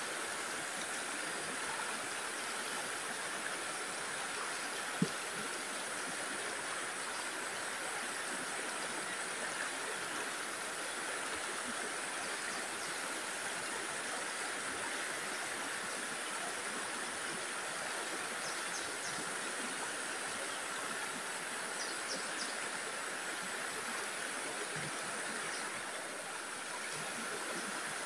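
Steady rush of a small stream running over rocks. A single short click stands out about five seconds in.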